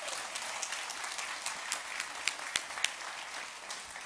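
Audience applauding: many hands clapping together, fading out near the end.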